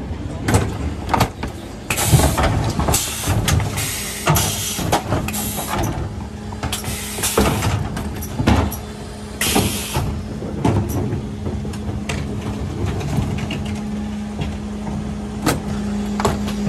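Mercedes Econic refuse truck at work close by, its engine running with a steady hum. There are repeated bursts of hissing air and many clanks and knocks.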